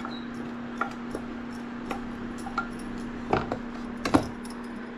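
Wooden spatula knocking and scraping against a frying pan and a steel bowl as cooked greens are scooped across, about seven sharp knocks, the loudest a little after four seconds, over a steady low hum.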